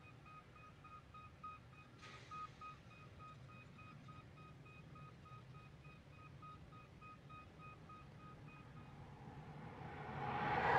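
Distant reversing alarm on heavy construction machinery, beeping several times a second at one steady pitch. The beeping stops near the end as a vehicle passing close by grows quickly louder.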